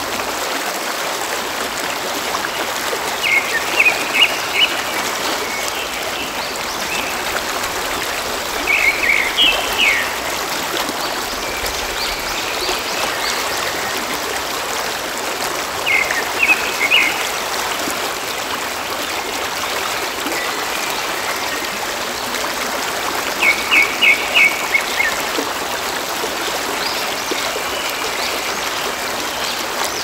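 Shallow stream rushing steadily over rocks. Over it a bird chirps four times, each a quick run of a few high notes.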